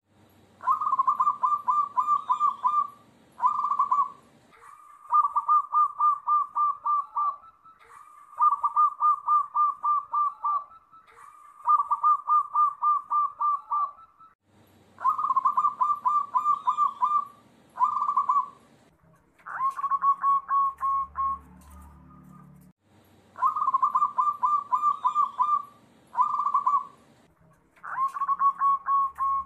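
Zebra doves (perkutut) singing: about a dozen phrases of rapid, staccato cooing notes held at one pitch, each phrase a second or two long, with short pauses between.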